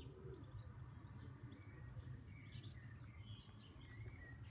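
Faint outdoor ambience: small wild birds chirping and whistling here and there over a steady low background hum.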